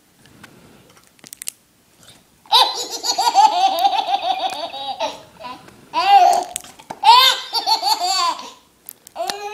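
Baby laughing hysterically in several long bursts of rapid, high-pitched laughs, starting about two and a half seconds in.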